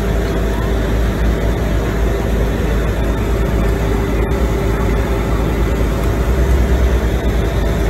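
Pickup truck engine running steadily, with a constant hum and a low rumble that swells briefly near the end.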